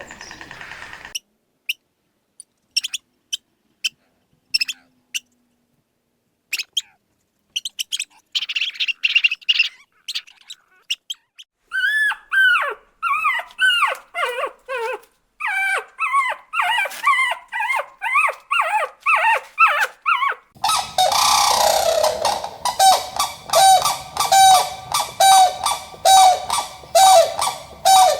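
Animal calls: scattered clicks at first, then a long run of short cries, each falling in pitch. Near the end comes louder calling in a regular pulse about twice a second over a steady hiss.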